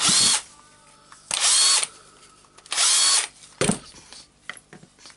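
Cordless drill-driver runs in three short bursts, each with a quick rising motor whine, backing out the screws of a drill's gear-assembly housing. A single sharp knock follows about a second after the last burst.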